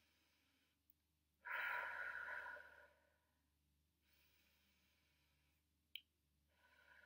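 A woman's slow, deep breath out through the mouth, lasting about a second and a half, as part of a guided breathing exercise. A small click follows near 6 s, then a fainter breath near the end.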